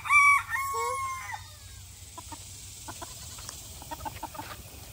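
A rooster crowing, one sustained call lasting about a second and a half at the start, followed by faint scattered clucking.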